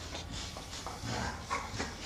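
Two American Staffordshire Terriers play-fighting, breathing hard, with a few short breathy vocal sounds about one and a half seconds in.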